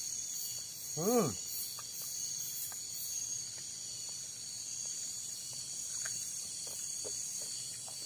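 Night insects in tropical forest: a steady high-pitched chorus of trilling, with a quick pulsing chirp over it for the first few seconds. A short voice sound, a single hum or syllable, comes about a second in.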